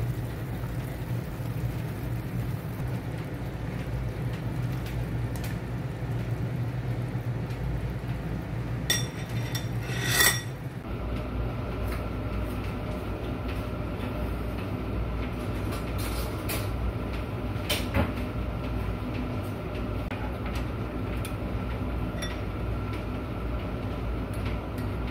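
Metal ladle and spoon clinking against a steel pot and a china bowl as soup is served, over a steady low hum. The loudest clatter is a quick run of clinks about ten seconds in, with a few single clinks later.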